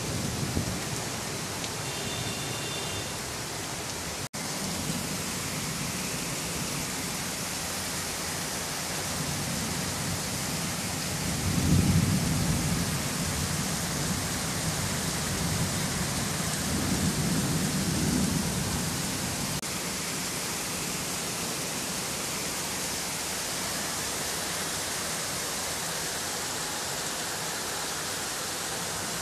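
Heavy rain pouring steadily during a storm. A low rumble swells up twice in the middle, the louder one about twelve seconds in.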